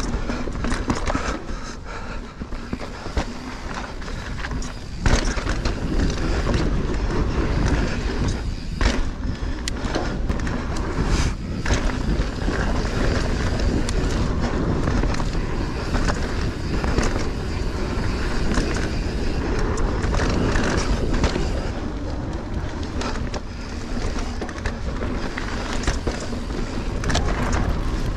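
Mountain bike rolling along dirt singletrack: steady tyre noise with the bike rattling over bumps, and sharp knocks scattered throughout, the first strong one about five seconds in.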